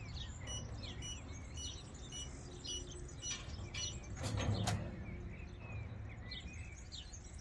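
Car-park payment terminal beeping, a row of short high beeps about two a second with the bank card in its reader, over birds chirping. Around four and a half seconds in comes a brief louder scuffing noise.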